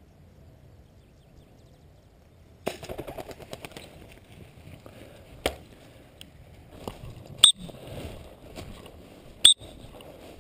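A quick burst of wing flaps about three seconds in, as a pigeon is thrown from a bird launcher and flies off, then two sharp gunshots about two seconds apart near the end.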